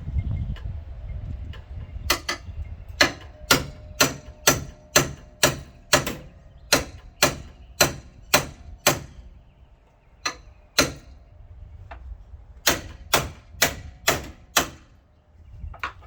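Repeated hammer blows on metal, each ringing briefly, about two a second: a long run of about fourteen strikes, two more after a short pause, then a final run of about five.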